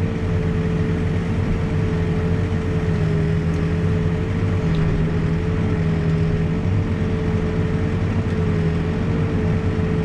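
New Holland backhoe's diesel engine running steadily while the hoe digs, a constant drone with a steady whine held above it.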